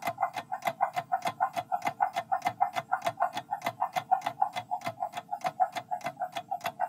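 Quiz countdown-timer sound effect: a rapid, even clock ticking at about five ticks a second, each tick carrying a light pitched tone, counting down the time to answer.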